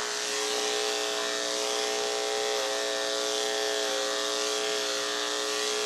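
Andis AGC Super electric pet clippers running with a steady, even hum and hiss while shaving a cat's fur.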